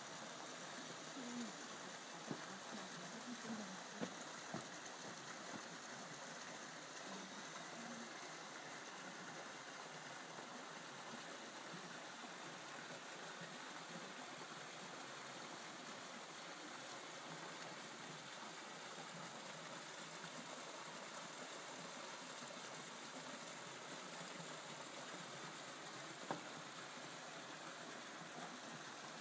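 Mountain stream flowing over rocks, a steady rushing of water. A few faint knocks come in the first few seconds, and a single sharp click near the end.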